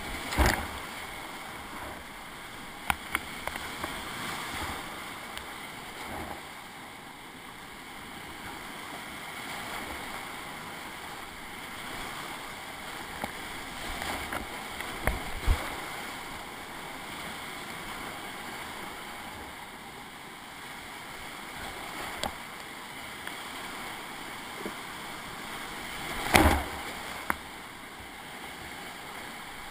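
Whitewater rapids of a mountain river heard from a kayak running them: a steady rush of churning water, broken by a few sharp splashes and knocks of paddle strokes and waves hitting the boat, the loudest about half a second in and some twenty-six seconds in.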